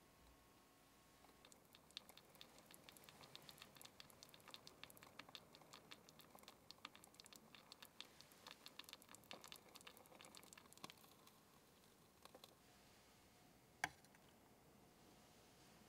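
Hijiki, carrot and fried tofu simmering in a tiny steel saucepan: a faint, fast crackle of bubbling liquid that dies away after about eleven seconds. Near the end comes a single sharp clink as the small metal pan is set down on a steel counter.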